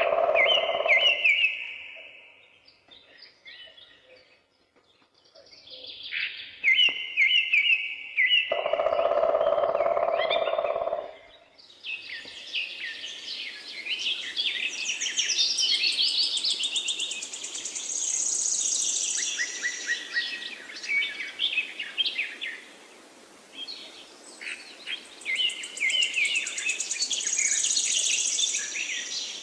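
Several songbirds singing at once, with many quick chirps and trills that thicken into a dense chorus from about twelve seconds in. Twice in the first half, at the start and about nine seconds in, a louder, lower-pitched sound lasting a couple of seconds stands out beneath the chirping.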